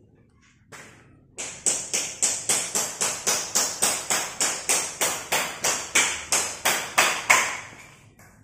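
Hammer chipping at floor tile, striking hard in a fast, even rhythm of about four blows a second. The blows start about a second and a half in and stop near the end.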